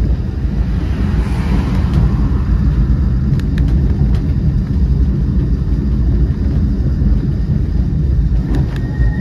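Cable-hauled Great Orme Tramway 37' bogie tram car running up its street track, with a steady low rumble. A passing van swells and fades in the first two seconds, and a few sharp clicks come at about three and a half seconds and again near the end.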